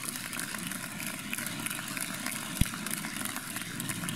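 Crowd noise in a large hall, a steady din with many small clicks and claps, and one sharp low thump about two and a half seconds in.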